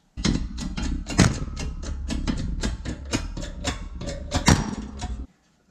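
Rapid sharp metal knocks, about four or five a second, over a steady low rumble, as a U-joint is driven out of a steel driveshaft yoke. The sound starts and stops abruptly.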